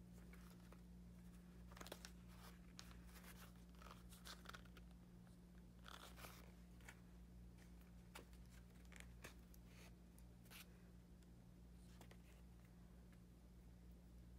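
Faint rustles and scratches of a needle and waxed thread being pulled through pre-punched holes in leather during hand-stitching, over a low steady hum.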